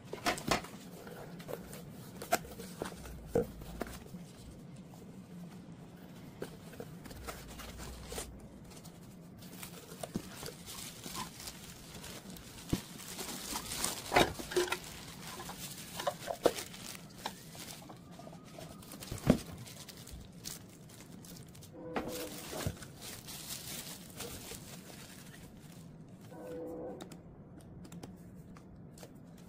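Cardboard box and plastic wrapping handled during the unboxing of a food chopper: scattered rustling and crinkling with irregular taps and knocks, the sharpest about two-thirds of the way through.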